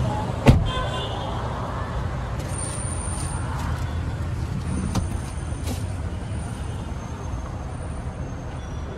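Steady rumble of road traffic, with a sharp knock about half a second in and a lighter click about five seconds in.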